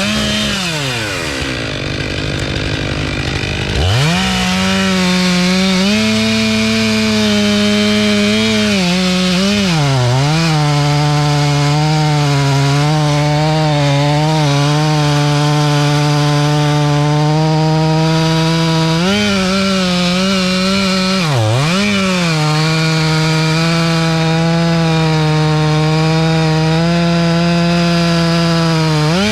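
Chainsaw running at high revs while sawing wood. Its pitch drops near the start and climbs back about four seconds in, then holds steady with a few brief dips as the throttle is let off and squeezed again.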